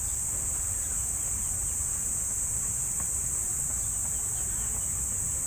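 A steady, unbroken high-pitched insect chorus over a low outdoor rumble.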